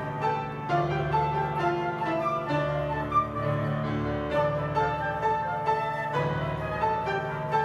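Live chamber ensemble playing an overture: grand piano with a recorder melody and bowed strings, held notes over a sustained low bass line.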